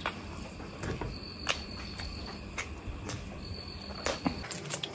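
Close-up eating sounds of mutton curry being chewed: wet smacks and clicks at irregular intervals over a steady background, with a high thin trill coming and going behind them.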